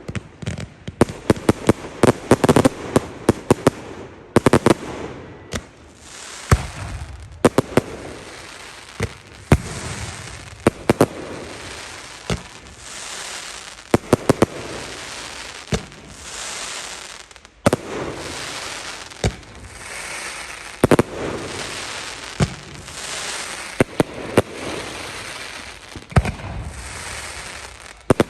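Fireworks display going off: a rapid run of crackling bangs for the first few seconds, then single loud bangs about every second, with fizzing and crackling between them.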